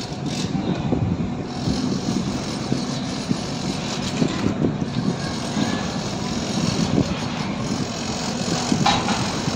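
Steady low engine rumble of heavy machinery or traffic, running without a break.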